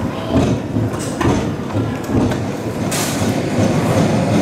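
A train running on rails, a steady low rumble with irregular pulses.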